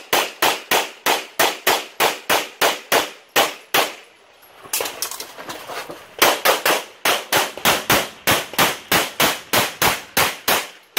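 Semi-automatic pistol fired in fast strings, about three shots a second: roughly a dozen shots, a pause of about two and a half seconds, then another rapid string of over a dozen shots near the end.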